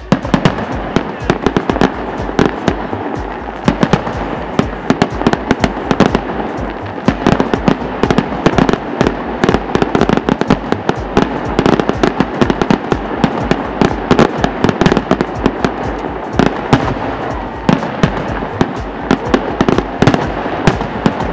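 Fireworks display with a dense, continuous barrage of aerial shell bangs and crackles, several a second, over an unbroken rumble; it starts abruptly.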